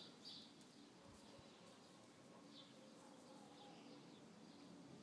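Near silence with faint bird chirps now and then.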